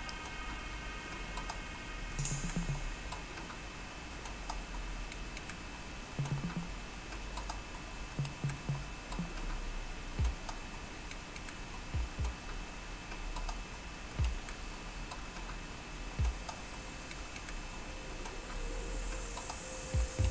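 Quiet room noise with a faint steady hum, broken by scattered soft clicks and low knocks every second or two.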